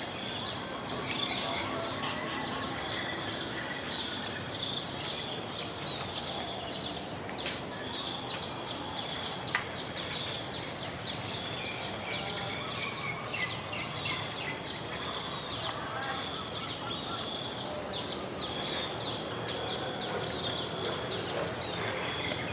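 Rural village ambience after rain: birds chirping over and over, a few short falling calls a second, over a steady high-pitched tone and a soft background hiss.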